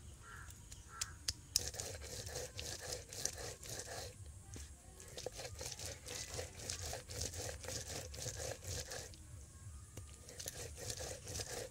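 Stone roller rubbed back and forth on a flat grinding stone (shil-nora), grinding garlic and red chilli into paste: a rhythmic run of gritty scraping, crunching strokes, several a second, with a couple of short pauses.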